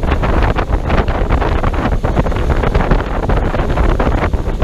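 Strong wind buffeting the microphone on the open deck of a pontoon boat, a steady rough rush with heavy low rumble.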